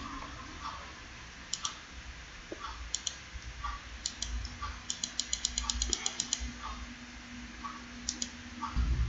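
Computer mouse clicks, mostly in quick press-and-release pairs, with a fast run of about a dozen clicks in the middle, over a faint steady hum.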